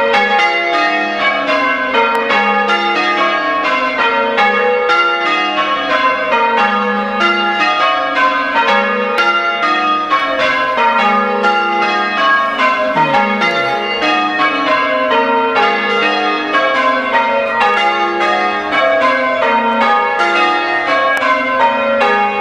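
A ring of six church bells being rung in change ringing: the bells strike one after another in a steady, even rhythm, the rows stepping down from treble to tenor over and over.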